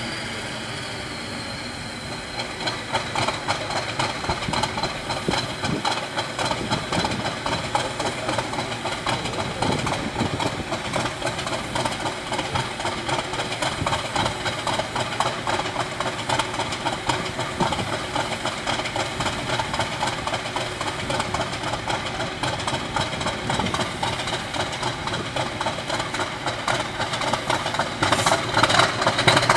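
Class 50 diesel locomotive's English Electric 16-cylinder engine running at idle, warming up after a cold start in sub-zero temperatures, with a steady rapid firing rhythm and exhaust hiss. It gets louder about two seconds in and again near the end.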